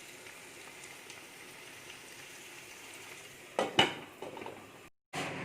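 Chicken pieces sizzling gently in butter and oil in a pan. About three and a half seconds in come a couple of sharp clattering knocks of cookware, and the sound cuts out for a moment near the end.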